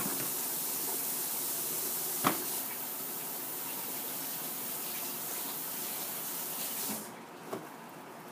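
A tap running with a steady hiss, shut off about seven seconds in. A single knock about two seconds in.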